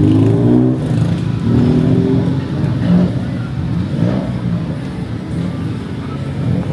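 Street traffic: a motor vehicle engine running and revving close by, its pitch rising and falling.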